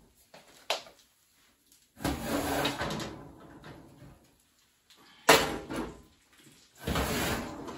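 Oven door of a gas range being opened and a skillet handled out of the oven, with one sharp metal clank a little past five seconds in as the pan is set down on the stovetop, then more rattling of the door and pan near the end.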